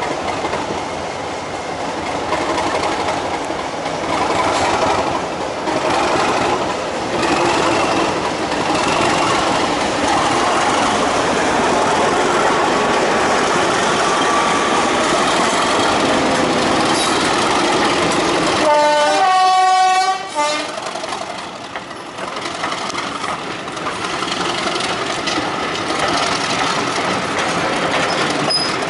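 British Rail Class 37 diesel locomotive's English Electric V12 engine running under power as it hauls its coaches away. About two-thirds through comes one horn blast of roughly a second and a half, the loudest moment. Afterwards the coaches' wheels clatter past over the rail joints.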